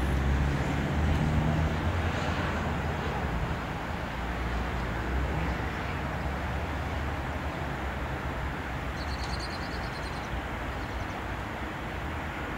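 Steady low rumble of aircraft engines running across the airfield, with a short run of high bird chirps about nine seconds in.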